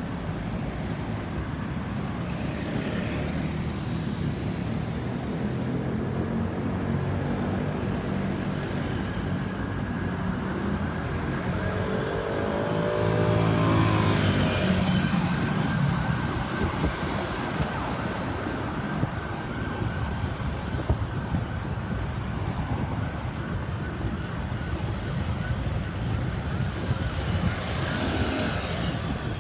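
An emergency vehicle going by on a road with its siren sounding, loudest about halfway through, as the pitch of the pass drops, over steady traffic noise.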